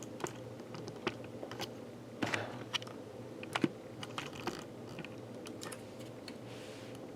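Scattered light clicks and taps of a laptop's memory module and plastic chassis being handled as a RAM stick is taken out, over a faint steady hum.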